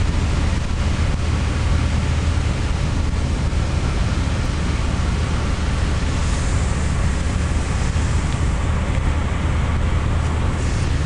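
Car in motion on a wet, slushy road, heard from inside the cabin: a steady low rumble of engine and tyres under an even road hiss, the hiss briefly brighter about six seconds in.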